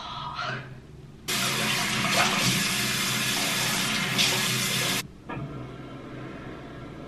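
Water running from a bathroom tap into a sink and splashing as a face is washed, starting about a second in and stopping suddenly about five seconds in. At the very start the tail end of a yawn is heard.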